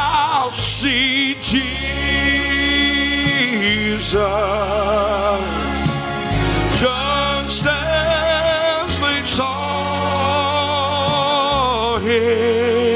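Gospel song performed live: a solo voice holds long notes with heavy vibrato over sustained accompaniment chords.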